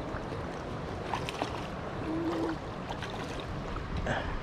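Steady rush of flowing stream water, with a few faint clicks and a short low hum about two seconds in.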